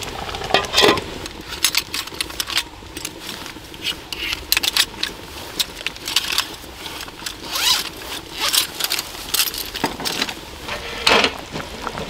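Rummaging in a zippered soft pouch: zipper, rustling and many small clicks and clinks. A sharp clink about a second in as the glass lid is set on the stainless pot, and a scrape near the end as the pot is shifted on the burner.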